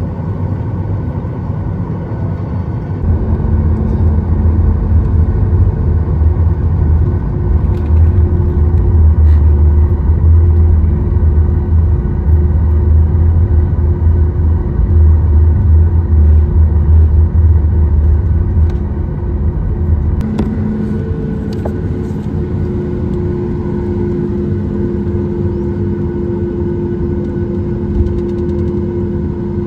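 Cabin noise inside a Boeing 737 MAX 8 taxiing, with its CFM LEAP-1B engines running. A heavy low rumble swells from about three seconds in and eases off around twenty seconds, leaving a steadier hum with a held tone as the jet lines up on the runway.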